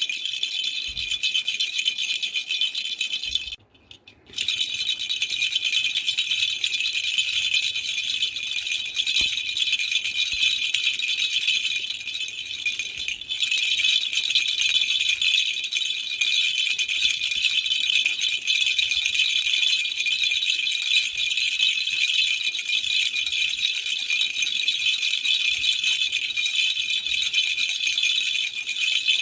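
Baby's rattle toy shaken continuously, a dense bright rattle of many small beads, with a short break about four seconds in.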